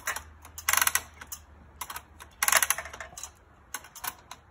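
Hand-cranked boat winch ratchet clicking in short runs of rapid clicks, a run every second or so, as the winch is cranked to haul a heavy beam up a tree.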